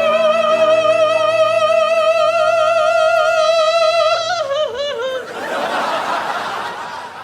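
Male falsetto soprano in operatic style holding one long high note with wide vibrato on "want", then dropping through a short falling run over piano accompaniment. A burst of audience laughter follows near the end.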